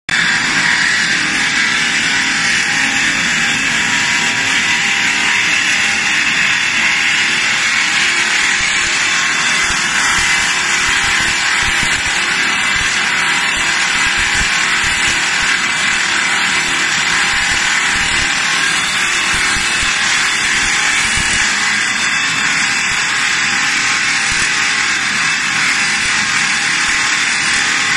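Stone turning lathe running and cutting stone: a steady, loud grinding noise that holds at an even level throughout.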